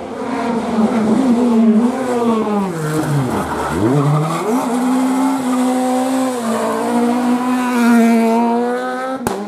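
Peugeot 208 rally car's engine working through a hairpin. The revs fall steeply under braking about three seconds in, climb hard again as it accelerates out, then hold fairly steady as it pulls away. A sharp click comes near the end.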